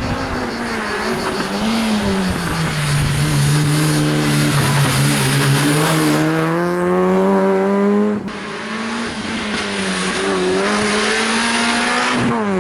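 Competition car's engine running hard through a driving-skills course, its pitch dropping and then climbing slowly as it accelerates. The sound cuts about eight seconds in and picks up again with the engine still running under load.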